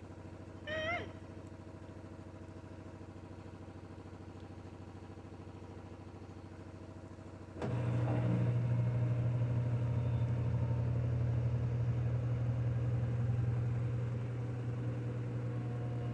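Washing machine running with a steady hum; about halfway through a much louder low, steady hum cuts in suddenly and holds until it stops abruptly at the end. A brief high warbling chirp sounds about a second in.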